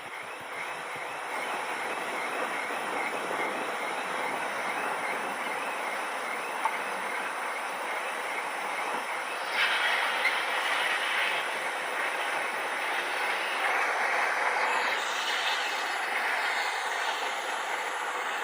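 Airplane landing: a steady roar of engine and rolling noise that grows louder about ten seconds in, with another surge a few seconds later.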